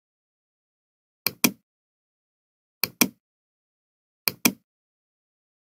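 Computer mouse button clicking three times, about a second and a half apart, each click a sharp press followed by a louder release.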